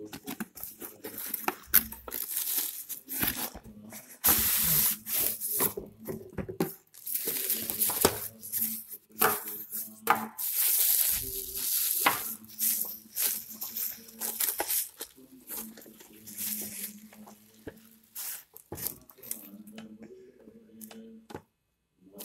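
Plastic packaging crinkling and rustling, with a cardboard box being handled, in irregular bursts as an electric grill is taken out of its box and unwrapped.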